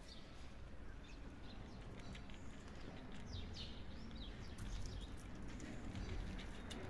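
Kittens crunching dry cat food: scattered small clicks, with a few faint bird chirps in the background around the middle, over a low steady rumble.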